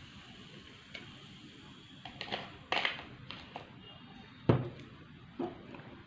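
Handling noise from movement at the table: a string of short knocks and rustles, the loudest a dull thump about four and a half seconds in.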